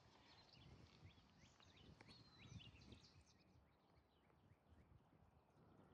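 Near silence outdoors, with faint high bird chirps scattered through the first half.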